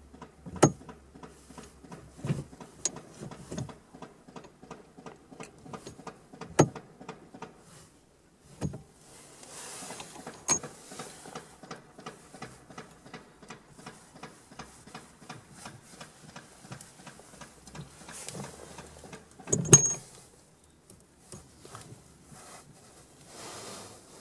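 Gear lever of a Fiat Panda 100HP being worked through the gate, with sharp mechanical clicks and clunks, several of them loud, over fast light ticking.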